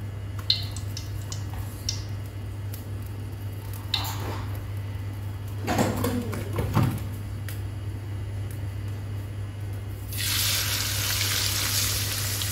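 Hot cooking oil in a wok under a low steady hum, with a few small clicks and knocks. About ten seconds in, a sudden loud sizzle starts as lemongrass-marinated rat meat is laid into the hot oil to deep-fry.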